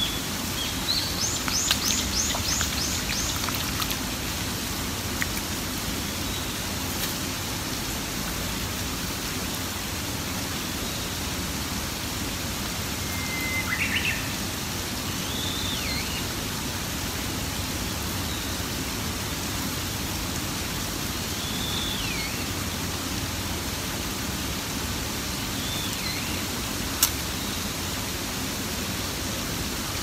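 Steady hiss of light rain, with forest birds calling over it: a quick run of about seven high chirps near the start, then single down-slurred whistles every few seconds. One sharp click near the end.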